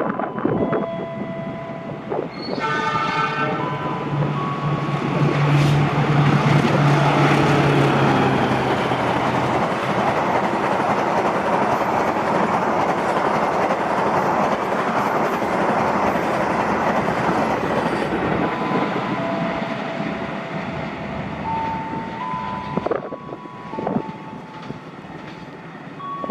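Express passenger train passing at high speed: a short horn blast a few seconds in, then the locomotive and a long rush of coaches and wheels on rail that lasts about fifteen seconds and fades away.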